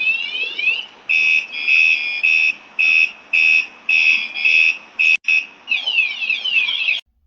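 Loud electronic siren of a WSDCAM anti-theft bike alarm: a run of fast rising whoops, then a string of rapid high beeps, then rising whoops again, cutting off suddenly near the end.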